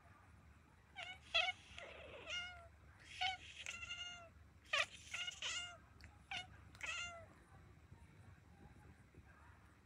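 Kittens mewing together: about a dozen short, high calls with falling ends, some overlapping, in a quick run that stops about seven seconds in.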